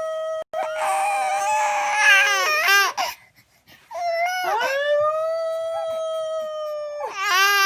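Two long, drawn-out wolf howls, each held on one steady pitch and wavering as it dies away. A baby starts crying with a shaky, wavering wail near the end.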